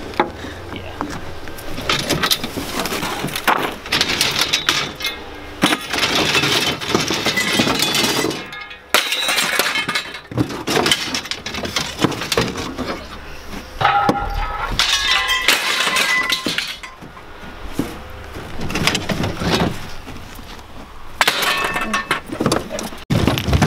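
Pieces of scrap steel clanking and clattering as they are handled and dropped onto a pile, a run of separate metal knocks. A few of the hits ring on briefly.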